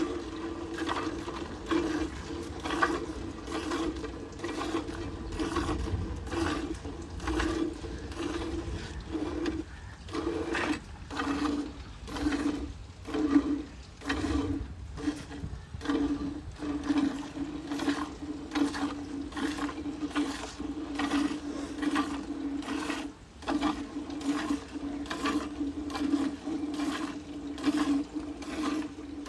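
Hand milking of a cow into a partly filled steel bucket: milk squirts from the teats and splashes into the frothy milk in a steady rhythm of about two squirts a second, over a steady low hum.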